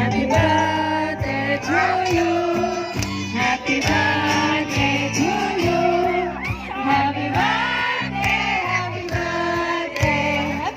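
A song: a singing voice carrying a melody over a steady instrumental accompaniment.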